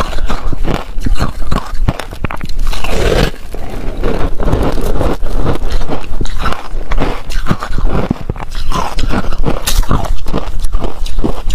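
Close-miked crunching and chewing of ice chunks coated in passion fruit pulp, a dense, irregular run of crisp cracks and crackles.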